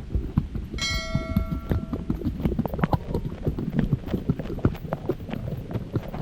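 Irregular footfalls on a muddy trail, a quick run of short knocks, with a brief bell-like chime ringing about a second in.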